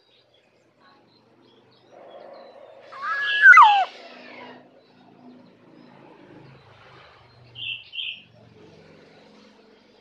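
Black-naped oriole calling, with one loud whistled phrase that holds a note and then slides down in pitch about three to four seconds in. Two short high notes follow near the end.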